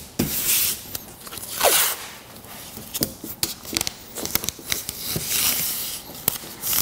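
Masking tape ripped off the roll in several quick pulls, with crinkling and rubbing as the strips are pressed down onto a motorcycle saddlebag lid.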